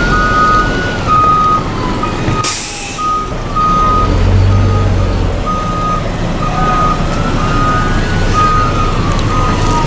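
Truck backup alarm beeping steadily, with a siren wailing slowly up and down behind it. A short air-brake hiss comes about two and a half seconds in, and a heavy engine rumbles briefly a little later.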